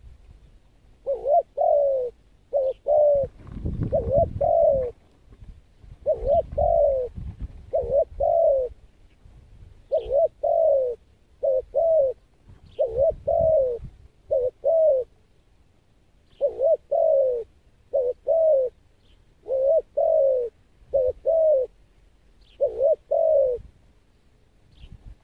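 Spotted dove cooing: paired, low coo notes repeated again and again, about one pair every second and a half. A low rumble sits underneath the calls for a few seconds early on.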